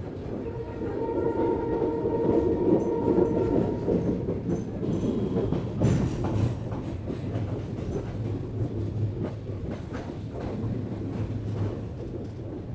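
Indian Railways ICF passenger coaches running on the rails: a steady rumble with wheels clacking over rail joints and a sharp knock about six seconds in. A steady pitched tone sounds for about three seconds near the start.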